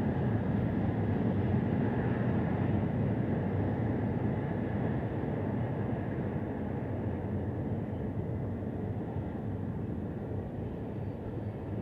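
Distant diesel freight locomotives running with a train in motion: a steady low engine drone and rumble that slowly fades.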